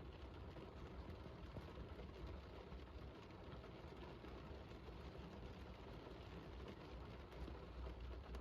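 Faint, steady rain hiss with a low rumble underneath.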